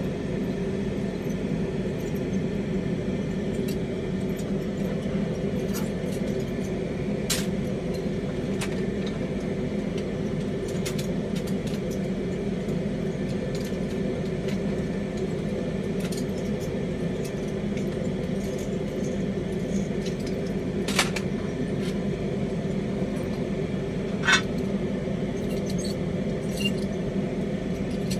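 Steady droning hum and hiss of a lit glassworking bench torch, with three sharp clinks of glass: one early, two later on, the last the loudest.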